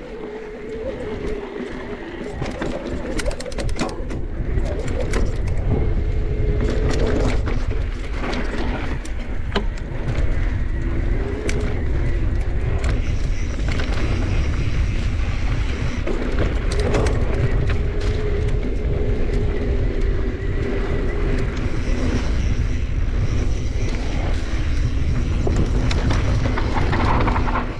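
Mountain bike riding fast down dirt and rock single track: wind rushing over the microphone and tyre rumble, with frequent sharp clacks and rattles from the bike jolting over rocks and roots.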